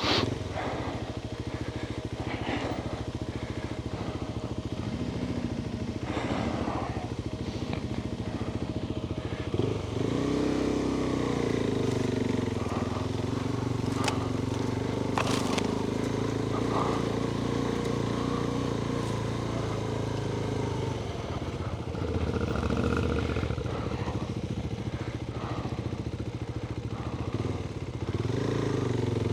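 Adventure motorcycle engine running at low speed on rough ground; its revs rise about ten seconds in and hold, ease off around twenty seconds, and pick up again near the end, with a couple of sharp knocks in between.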